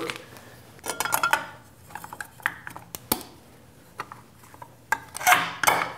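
Small metal clinks and taps from the gear and gear cover on the end of a milling machine's table leadscrew being handled and fitted, a scatter of separate light clicks with a sharper click about three seconds in.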